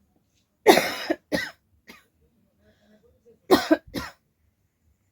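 A person coughing in two short bouts, one about a second in and another about three and a half seconds in, each made of two or three hacking coughs.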